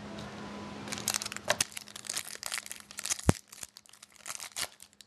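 Foil wrapper of a trading card pack crinkling and crackling in quick irregular snaps as it is torn open and handled, with a single knock about three seconds in.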